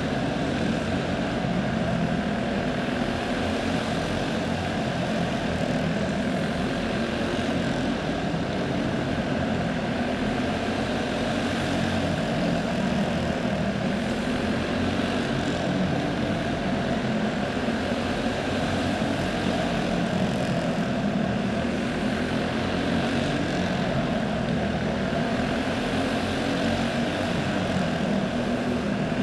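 Several clone-class dirt-track racing karts with small single-cylinder four-stroke engines running at racing speed, their engines blending into one steady, overlapping drone.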